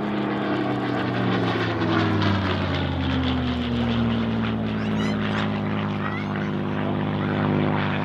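Supermarine Spitfire's Rolls-Royce Merlin V-12 engine in flight on a fly-past, its note falling in pitch over the first four seconds as the aircraft passes and then holding steady.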